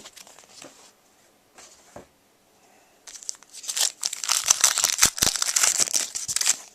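A foil trading card pack being torn open and its wrapper crinkled, starting about three seconds in after a near-quiet stretch with a single click.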